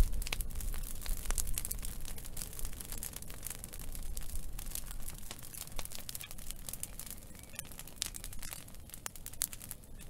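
Fire burning in twigs, crackling with many irregular small snaps over a low, steady rumble.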